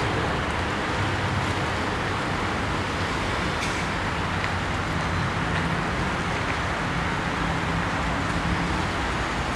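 Steady motor-traffic noise, a constant roar with a low engine hum under it.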